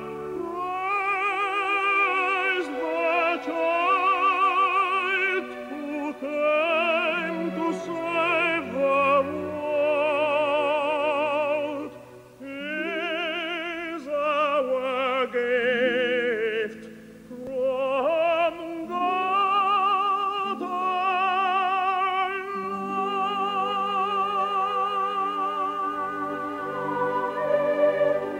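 Operatic singing with heavy vibrato in a classical arrangement: phrases of held and moving notes, with a couple of short breaks, ending on a long sustained note.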